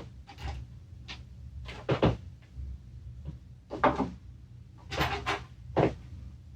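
Small engine parts and tools being handled and set down on a workbench: a series of short knocks and clatters, about half a dozen, spaced a second or so apart.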